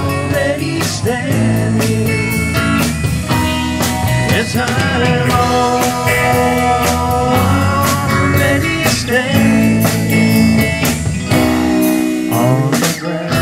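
Live band playing electric guitars and drums.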